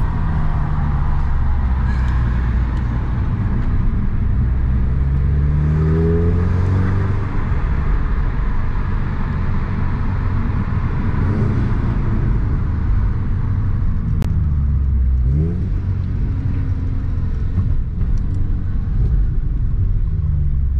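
Audi S3 8V's turbocharged four-cylinder engine heard from inside the cabin while driving, its note rising in pitch several times as the car accelerates, over steady road rumble. A single sharp click sounds about two-thirds of the way through.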